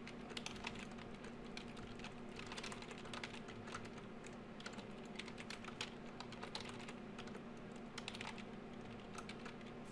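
Typing on a computer keyboard: a quick, irregular run of soft keystrokes as code is entered, over a steady low hum.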